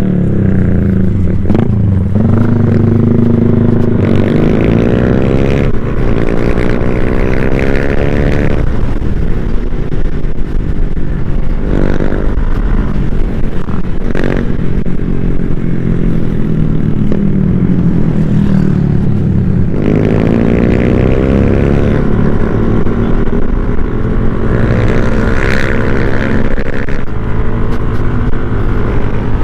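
Yamaha NMAX scooter's single-cylinder engine running under way, its pitch rising and falling several times as the rider speeds up and eases off, over steady road and wind noise. A few short knocks are heard along the way.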